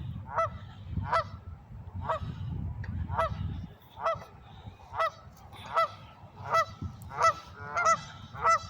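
Geese honking repeatedly, about one call every 0.7 s, with calls crowding and overlapping near the end as more birds join in. The honking sounds like they want the person approaching to go away. A low rumble runs under the calls and stops a little over three seconds in.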